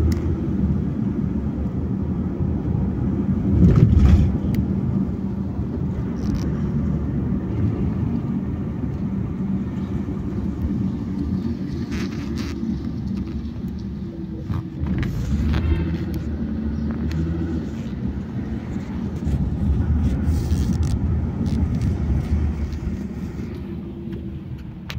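Car cabin road noise while driving: a steady low rumble of tyres and engine, with a few brief knocks and a louder bump about four seconds in.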